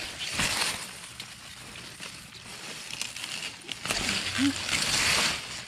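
Beet leaves and stalks rustling and crackling as hands grip and pull a beet plant right beside the microphone, with louder bursts about half a second in and again from about four to five seconds in.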